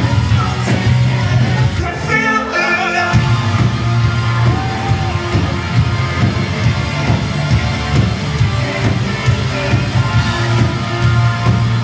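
Pop-punk band playing live through a concert sound system, with a singer over heavy bass, guitar and drums. The bass drops out for about a second, two seconds in, then comes back.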